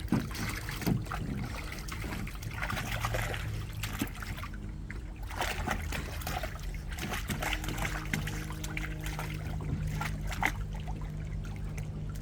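Water splashing and sloshing in a small pool as a dog noses at floating balls, with a few sharper splashes. A steady low hum runs underneath.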